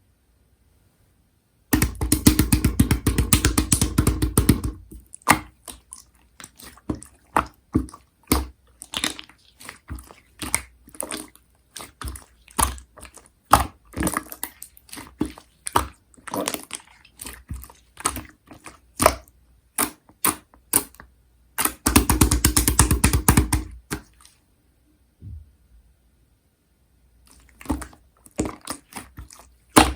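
Slime being squeezed and played with by hand: two fast runs of squishy clicking pops, with slower single sticky pops and clicks between them.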